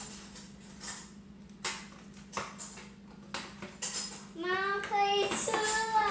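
Small plastic clicks and taps from handling toy parts, then, about four seconds in, two long, high-pitched, drawn-out calls that bend in pitch, each lasting about a second.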